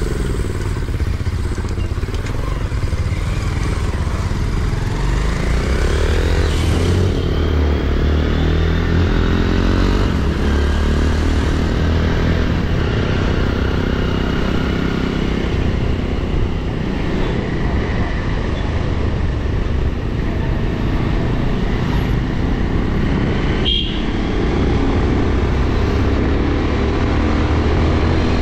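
Bajaj Pulsar NS200's single-cylinder engine under way, its pitch rising and falling several times as the rider works the throttle and gears, with steady wind rush on the microphone.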